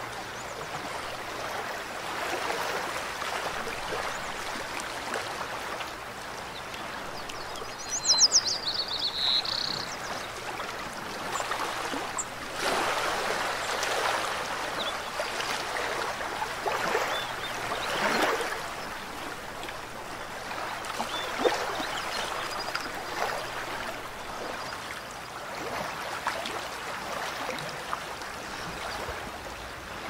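Mountain stream running, a steady rush of water that swells and ebbs with gurgles and splashes. A brief high chirping call cuts in about eight seconds in.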